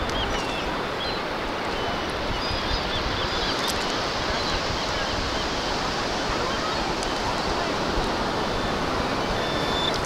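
Shallow surf and water washing steadily. A few faint, short, high chirps from a Garrett Pro-Pointer AT pinpointer sounding as it probes the sand about three to four seconds in.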